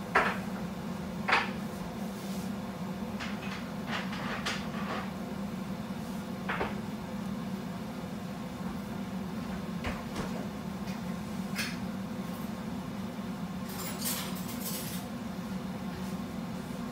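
Scattered clicks and knocks of kitchen things being handled, the two loudest about a second apart near the start and a small flurry near the end, over a steady low hum.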